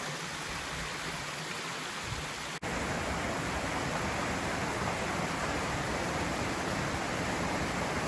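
Steady rush of falling water from a waterfall. About two and a half seconds in it cuts abruptly to a louder, deeper rush.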